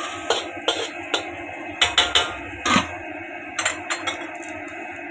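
Metal utensils knocking and clattering against a cooking pan, about ten irregular sharp knocks, some briefly ringing, over a steady background hiss.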